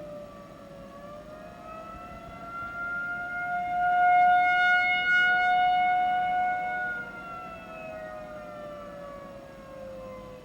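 Civil defense outdoor warning siren sounding during a test. The tone first sinks a little, then rises and holds high while it swells loudest in the middle, then falls and fades again.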